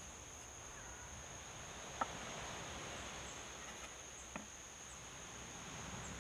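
Insects trilling steadily in one high tone, with two light knocks on a wooden table as a small clay bowl and a lime are handled, the first about two seconds in and louder, the second a couple of seconds later.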